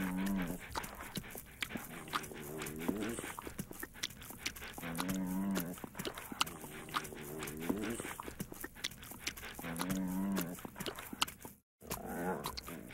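An English bulldog making long, low drawn-out vocal calls that repeat about every two and a half seconds, over wet smacking clicks from its licking tongue. The sound cuts out briefly near the end.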